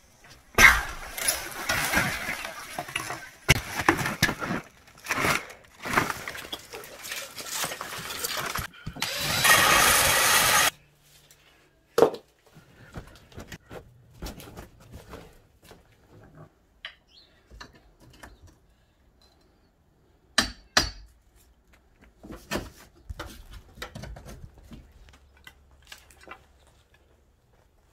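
A stucco wall section under a window opening being pushed out: stucco, lath and wood framing cracking, crashing and scraping for about ten seconds, then stopping abruptly. Afterwards only scattered faint clicks and taps, with two sharper clicks about twenty seconds in.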